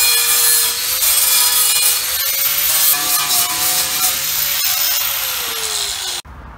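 Handheld angle grinder grinding on steel discs, cleaning up the remains of old welds: a steady motor whine over a grinding hiss. The whine sags in pitch near the end and then cuts off suddenly.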